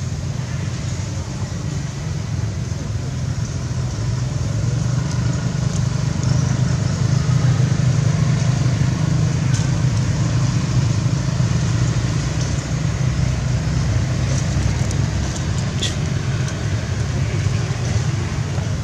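Motor vehicle engine running steadily nearby, a low continuous rumble that grows louder about four to six seconds in.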